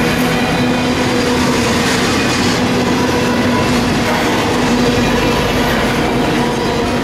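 Intermodal freight train of highway trailers on flatcars rolling past: a steady, loud noise of steel wheels on rail, with a steady droning tone running under it.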